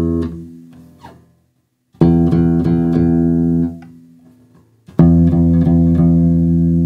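Four-string electric bass guitar sounding the same low E at different places on the neck, each note plucked several times in quick succession and left to ring for about two seconds before it dies away. The positions differ slightly in tone. A note already ringing fades out at the start, and two more follow about three seconds apart.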